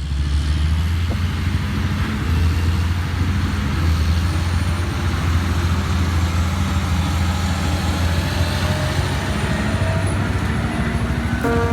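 Heavy machinery engine running steadily, a deep even drone with a fast flutter.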